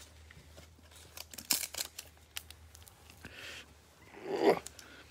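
Foil wrapper of a baseball card pack being pulled and torn open by hand, with scattered crinkles and crackles and a louder rip about four seconds in; the wrapper is stubborn to open.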